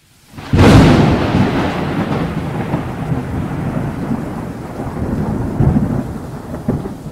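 Cinematic intro sound effect: a sudden loud boom about half a second in, followed by a thunder-like rumble with hiss that swells a few times and cuts off abruptly at the end.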